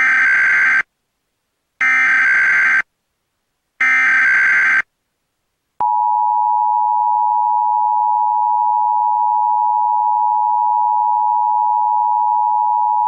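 Emergency Alert System tones announcing an Emergency Action Notification. First come three one-second bursts of SAME header data about two seconds apart. Then, about six seconds in, the steady two-tone attention signal comes on and holds.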